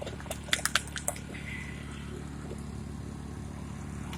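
Generator running steadily with a low, even hum. Over it, a quick run of light clicks and taps comes about half a second to a second in, from pickles being handled and put on the burgers.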